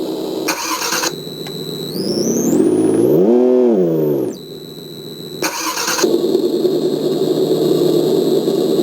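Simulated engine sound from an RC car sound module: a steady idle that revs up and falls back about two to four seconds in, with a thin whistle rising during the rev. Two short hisses break in, about half a second in and again about five and a half seconds in.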